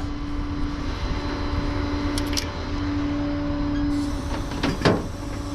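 Vehicle engine running with a steady hum over a low rumble, with a few light clicks and a sharper knock near the end.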